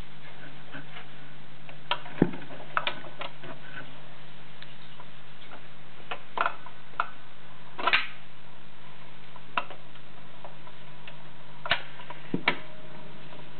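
Vintage E.A.R record player with a Garrard RC121 Mk II turntable giving scattered sharp clicks and pops over a steady low hum.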